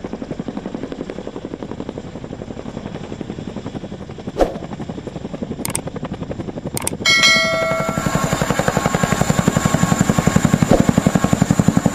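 CH-47 Chinook tandem-rotor helicopter with rapid, even blade thumping from its two rotors. A sharp click comes about four seconds in. About seven seconds in it gets louder, with a steady turbine whine over the rotor beat.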